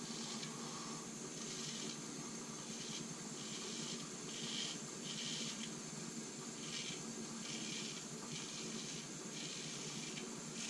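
Dovo Best Quality 6/8 straight razor scraping beard stubble through shaving lather. It comes as a series of short hissing strokes, roughly one a second, over a steady low hum.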